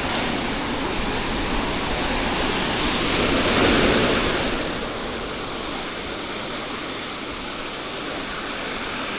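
Sea waves washing onto the beach, a steady rush of surf that swells as one wave breaks about three to four seconds in, then eases.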